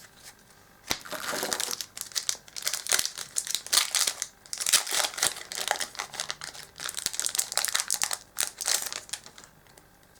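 Foil Yu-Gi-Oh booster pack wrapper crinkling as it is torn open and handled, in quick rustling bursts from about a second in until near the end.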